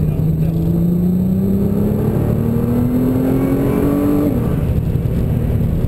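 Nissan GT-R's twin-turbo V6 heard from inside the cabin, accelerating with the revs climbing steadily, then an upshift about four seconds in drops the pitch sharply.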